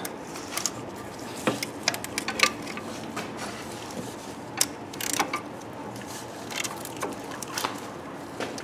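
Scattered light metallic clicks and knocks of hand tools and parts being handled around a car engine's front pulleys, with a few sharper knocks around the middle.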